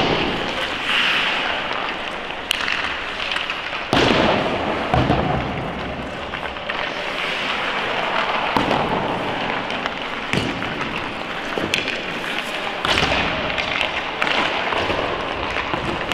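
Ice hockey practice on a rink: irregular sharp cracks and thuds of pucks and sticks striking, and pucks hitting the boards, a few seconds apart, over a steady scraping hiss of skates on the ice.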